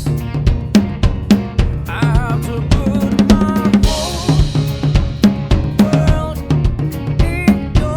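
Drum kit played in a steady groove along with a song, kick drum and brass snare hitting on a regular beat under a male singing voice, with a cymbal crash about four seconds in.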